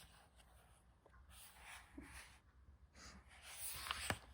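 Faint rustling of a picture book's paper pages being handled and turned, in a few soft swells, with a small click near the end.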